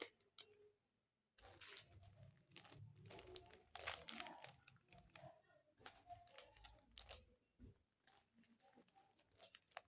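Faint rustling and crinkling with scattered small clicks, of hands handling small objects and their packaging; the busiest stretch is between about one and a half and four and a half seconds in.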